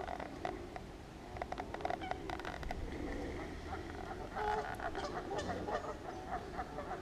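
Canada geese honking among other waterfowl calls: many short calls in quick runs, busiest about a second and a half in and again from about four and a half seconds in.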